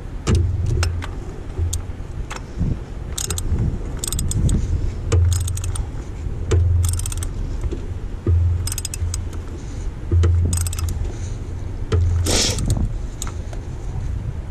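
Scattered metallic clicks and light rattles as the oil filter cap is screwed into its housing and snugged down, with a busier cluster of clicks about twelve seconds in. Wind rumbles on the microphone in low gusts every second or two.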